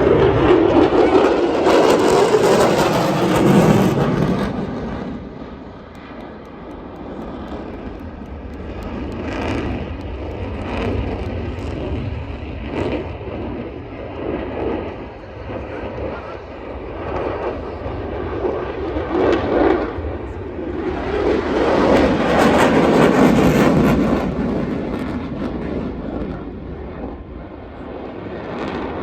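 Aircraft engine noise swelling and fading twice: loud at the start, dying away after about four seconds, then building again to a second peak about twenty-two seconds in as an aircraft passes.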